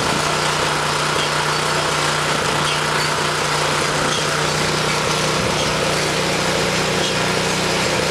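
Small engine running steadily at a constant speed, a continuous drone with no change in pitch.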